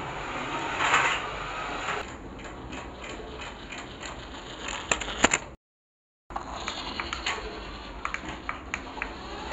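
Small toy car's motor and plastic gears running, with many short clicks and ticks as it moves over a rug. The sound cuts out completely for under a second a little past halfway, then carries on.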